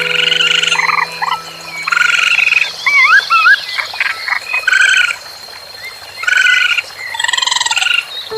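Animal calls: short, repeated croaking calls in several pitches, with a few quick rising whistles about three seconds in.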